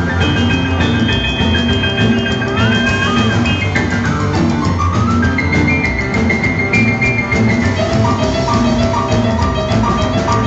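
Live rockabilly band in an instrumental break: an electric stage piano played hard in a solo over a drum kit keeping a steady beat.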